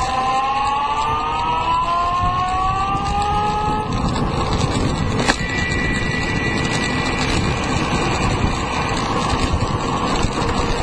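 Home-built electric longboard's motor whining, rising in pitch as the board speeds up for about four seconds and then dropping out, over a steady rush of the wheels on asphalt and wind. A single click a little past the middle.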